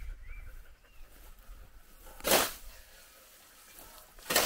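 Two scythe strokes swishing through tall grass, the blade cutting it down, about two seconds apart.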